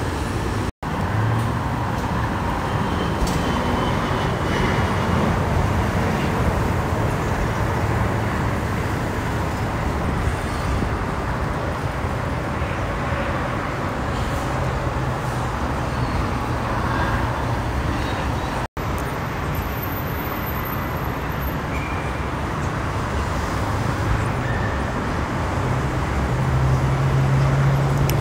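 Steady freeway traffic: the tyres and engines of cars and trucks passing in a continuous rush, with a truck's low engine drone swelling near the end. The sound cuts out for an instant twice.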